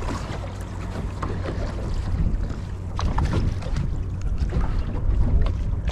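Wind buffeting the microphone over water lapping at a small boat, with a steady low rumble and a few short ticks and splashes as a fish is reeled in to the boat on a baitcasting rod.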